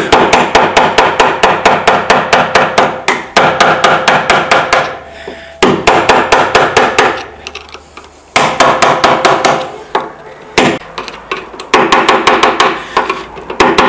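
Hammer tapping on metal in quick runs of light blows, several a second, each with a short metallic ring, with brief pauses between the runs. The blows are driving a tight-fitting splined part of a Vespa P200 E's steering column home.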